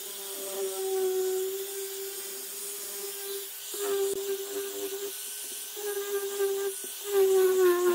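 Handheld angle grinder with a sanding disc running and sanding pine: a steady high whine with a rubbing hiss, broken off briefly a few times and louder near the end.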